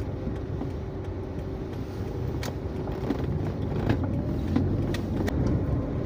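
Car driving at low speed, heard from inside the cabin: steady low engine and road rumble, with a few faint clicks.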